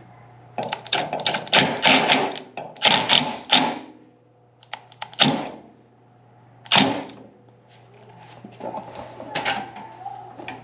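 Hard parts being handled: a quick run of clicks and clatters, then two single louder knocks, then lighter ticks near the end. A faint steady low hum runs underneath.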